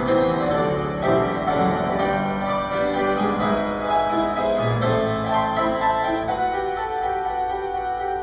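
Instrumental piano music, with notes held and overlapping.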